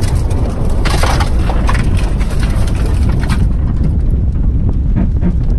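Tesla Model S-based electric pickup spinning its tyres on loose dirt during a donut, with wind buffeting the car-mounted microphone as a heavy low rumble and a crackle of dirt and gravel spraying; the crackle thins out about three and a half seconds in. No engine sound, since the car is electric.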